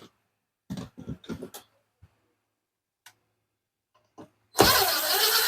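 A few short clunks of tools being handled, then a power drill runs in one short burst of about a second and a half near the end, stopping abruptly.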